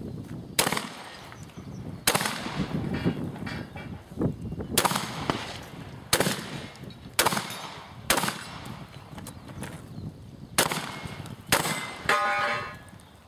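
Shotgun fired eight times at an uneven pace, one to three seconds between shots, with a metallic ringing after the last shot.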